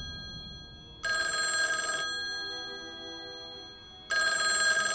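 Rotary-dial desk telephone bell ringing: rings about a second long, roughly three seconds apart, each fading slowly after it stops.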